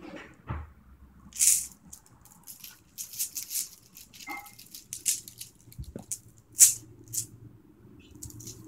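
Loose filling shifting and rattling inside a filled sock as it is twisted and squeezed, with fabric rustling: a string of short rustles, the loudest about two-thirds of the way in.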